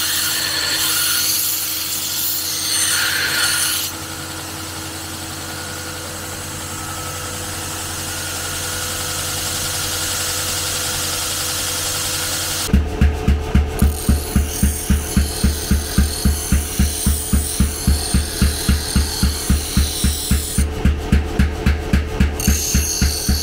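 Steel being worked with a power tool: a motor runs with a steady hum and hiss, brighter for the first few seconds. About halfway through, a rhythmic stroke with a deep thud sets in, about three strokes a second.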